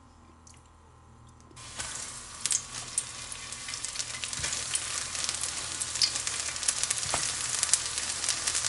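Cornmeal-and-flour-coated yellow squash slices going into hot oil in a stainless steel frying pan, sizzling and crackling. The sizzle starts suddenly about a second and a half in and grows louder as more slices are added.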